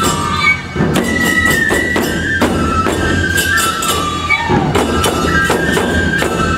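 Nebuta bayashi festival music played live: bamboo flutes carry a high melody over steady taiko drum beats and clashing hand cymbals.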